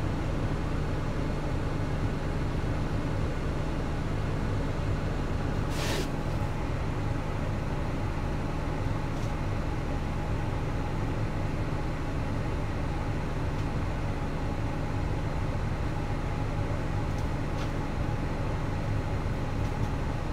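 Isuzu NPS 4x4 truck's diesel engine idling steadily with the vehicle stopped, a constant low hum. A single sharp click about six seconds in.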